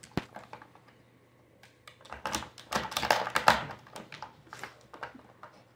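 Hard plastic pieces of a watermelon-shaped dog treat puzzle clicking and clattering as a corgi noses and pushes them, with a dense run of rapid clatter in the middle.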